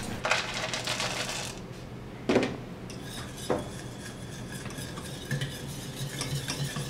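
Wire whisk stirring around a stainless steel saucepan of hot custard base, scraping and clicking against the metal, with two sharper knocks a second or so apart. The white chocolate is being whisked in to melt.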